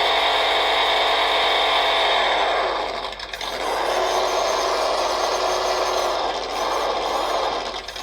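PRC QX-4 1/18 micro RC crawler running under throttle: a steady mechanical whine from its drivetrain. It eases off and comes back twice, about three seconds in and again around six and a half seconds.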